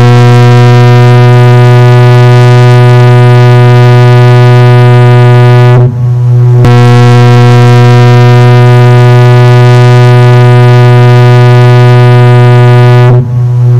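Sumburgh Head Lighthouse foghorn sounding one long, loud, steady low blast, rich in overtones, that falters briefly about six seconds in and again just before it cuts off.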